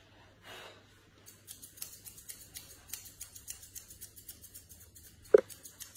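Grooming scissors snipping quickly at a Shih Tzu's facial hair, about five crisp snips a second for several seconds. Near the end comes one brief, loud pitched squeak.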